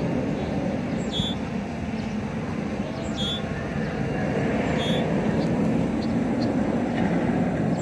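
Steam locomotive standing at rest: a steady low rumble and hiss that grows a little louder about halfway through, with short high chirps every second or two.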